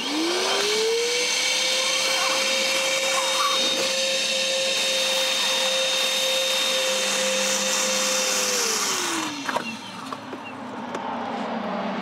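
Milwaukee M12 FUEL cordless wet/dry vacuum switched on, its motor spinning up to a steady high whine as it sucks up water. About eight and a half seconds in it is switched off and winds down.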